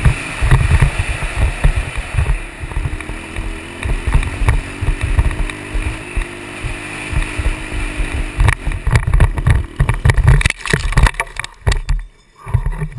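Dirt bike engine running under heavy wind buffeting on a helmet-mounted camera. About eight or nine seconds in comes a crash, a rapid run of knocks and scrapes as bike and rider go down. After that it goes much quieter.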